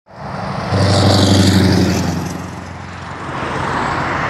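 Scania R620's 16-litre V8 with a straight-piped exhaust, driving past at speed with a deep, steady engine note. The note is loudest about a second in, eases, then swells again near the end.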